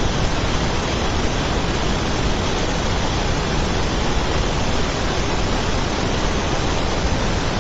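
Steady, loud rushing noise, even throughout, with no tone, rhythm or knocks in it.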